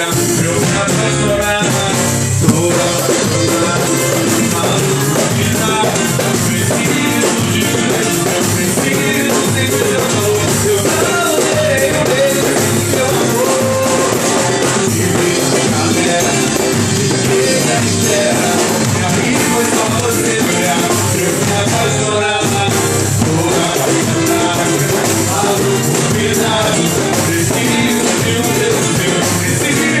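A live band playing a swing groove on drum kit, bass and viola, with a singing voice over the music.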